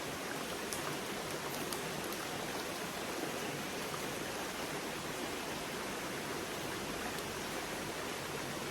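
Trout stream water running steadily through a riffle, a continuous even rush, with a few faint ticks in the first couple of seconds.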